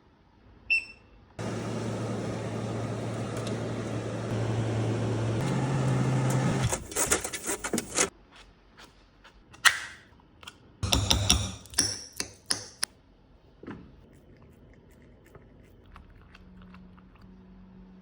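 A short electronic beep, then a small appliance motor running with a steady whir and low hum for about five seconds, its hum stepping up in pitch near the end, followed by a run of scattered knocks and clatter.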